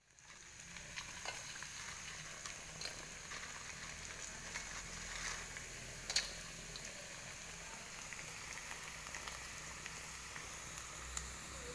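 Melinjo crackers frying in hot oil in a pan: a steady sizzling hiss with scattered crackles and small pops, one sharper pop about six seconds in.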